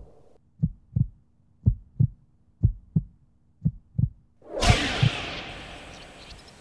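Heartbeat sound effect: paired low thumps, lub-dub, about one beat a second. About four and a half seconds in, a loud rush of noise comes in suddenly and slowly dies away, with one more heartbeat under it.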